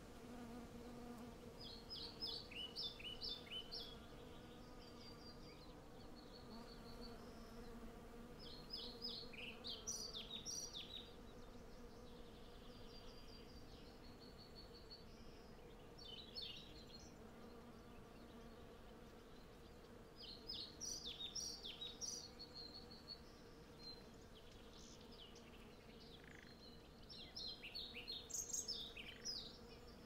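Hundreds of honey bees foraging at cherry blossom, a steady low hum throughout. Songbirds sing over it in five short bursts of quick falling notes, louder than the hum, with brief high trills between them.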